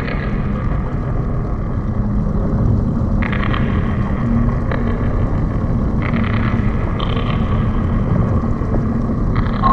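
Steady low underwater rumble of ship noise, with a faint steady hum under it and a few short higher hissy layers that come and go from about three seconds in.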